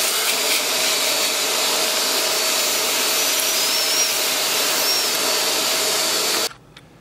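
A power drill runs steadily under load, driving the Huhn Solutions NS300L kit's drill bit through a guide jig to drill out a stripped head bolt hole in a Toyota 2AZ-FE engine block, finishing the cut to the bit's depth stop. It stops suddenly about six and a half seconds in.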